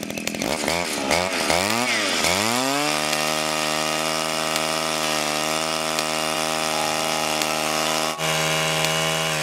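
Small two-stroke gas engine revved up and down several times, then held at a steady high speed.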